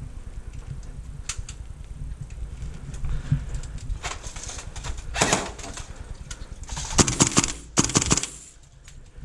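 Gas blowback airsoft rifle firing, with sharp cracks and bolt clacks. Single shots come about four and five seconds in, then a rapid burst about seven to eight seconds in, over the rustle of movement and gear.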